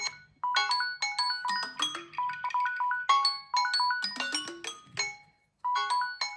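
Samsung phone alarm ringtone playing through the phone's speaker: a short melody of quick, high, clear notes stepping up and down, repeated three times with brief silences between.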